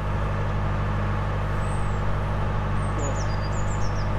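A narrowboat's inboard diesel engine running steadily, a low even drone.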